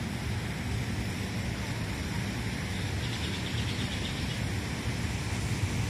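Steady low outdoor rumble, like wind on the microphone mixed with distant city hum, with a faint rapid high chirping about three seconds in.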